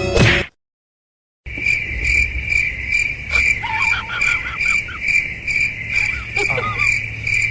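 Steady high-pitched insect chirping, pulsing about three times a second, with a few short squeaky rising-and-falling calls over it about two seconds in and again near the end.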